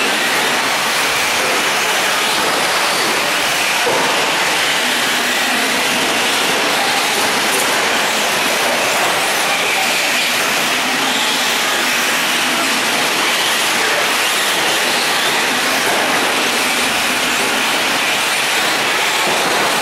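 A pack of electric 4WD short course RC trucks racing on a dirt track: a steady, dense whine of motors and gears mixed with tyre noise, with no single sound standing out.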